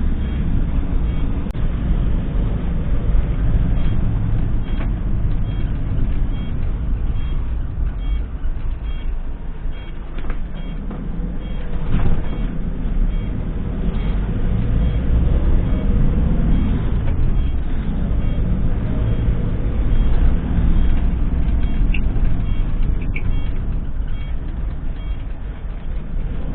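Motor vehicle driving: a steady low rumble of engine and road noise.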